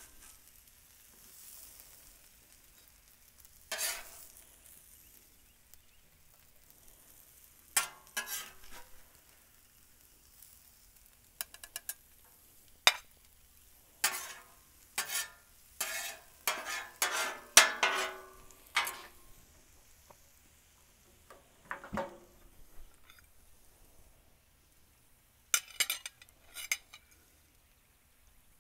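Metal spatula scraping across a steel flat-top griddle and scooping hash onto a plate: a run of short scrapes and clinks, thickest in the middle, over a faint sizzle. Near the end a fork clinks on the plate.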